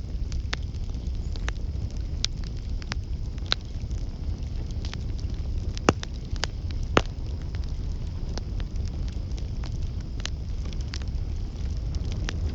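Campfire crackling, with irregular sharp pops over a steady low rumble of the flames; the two loudest pops come about six and seven seconds in.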